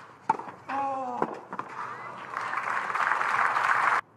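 A tennis ball struck with a sharp crack, a short shout, a second strike, then crowd applause and cheering that swells and stops abruptly near the end.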